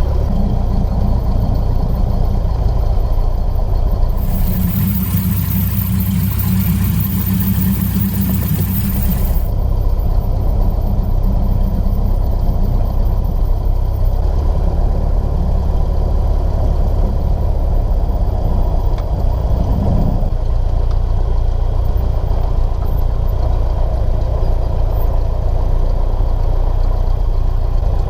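Cessna 150's four-cylinder Continental O-200 engine running steadily in flight. About four seconds in, a burst of hiss lasts some five seconds, and the engine note shifts slightly about twenty seconds in.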